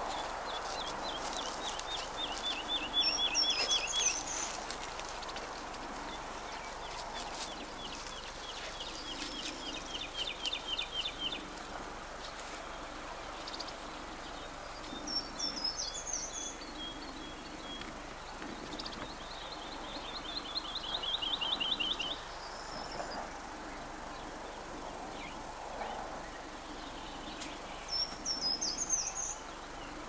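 Two songbirds singing in turn. One repeats a fast trill of many quick, evenly spaced notes, lasting a few seconds each time, three times. The other gives a short, higher twittering phrase about every twelve seconds.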